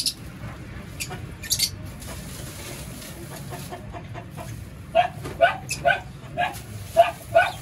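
Birds giving short, repeated calls, about two a second, through the second half. Two brief high rustling sounds come in the first two seconds.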